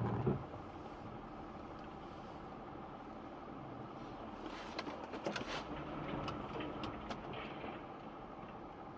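Steady cabin noise of a car driving on a slushy road: engine and tyre noise heard from inside, with a couple of knocks right at the start and a run of sharp clicks about halfway through.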